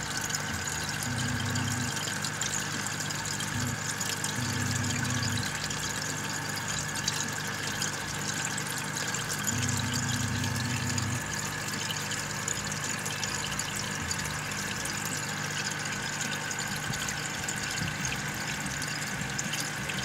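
Aquarium aeration running steadily: air stones on airline tubing bubbling in the tank, over the hum of the air pump, which swells in a low drone three times.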